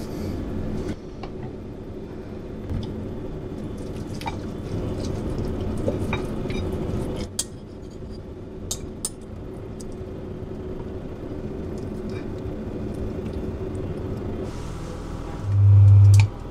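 A metal fork clinking and scraping on a ceramic plate in scattered light clicks over a steady low hum. Near the end, cooking oil pours into a frying pan, followed by a short, loud low-pitched buzz.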